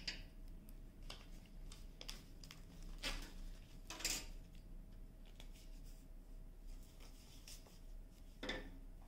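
Quiet handling noise: a few soft rustles and light clicks of hands moving a diamond painting canvas and kit parts, over a faint steady hum.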